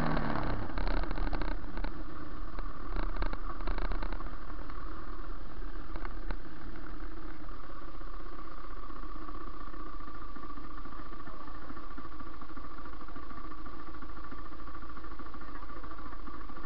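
KTM RC390's single-cylinder engine, heard from the rider's seat, running low as the bike rolls to a stop, then idling steadily once stopped.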